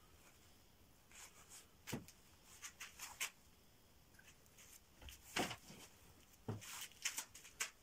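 Faint, irregular rustles and light taps of hands handling and pleating upholstery fabric around a round seat cushion.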